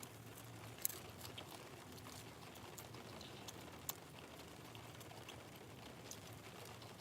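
Light rain pattering on the car, heard from inside the cabin as a faint steady patter with scattered soft ticks.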